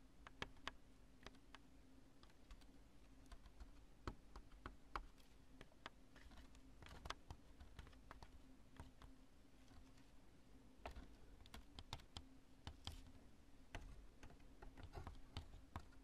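Fingers pressing and crushing a piece of cured construction spray foam, making faint, irregular crunchy crackles and clicks.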